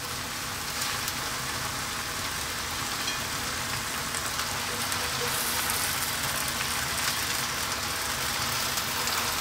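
Tomato and onion sauce sizzling steadily in a frying pan as water spinach leaves are piled in on top.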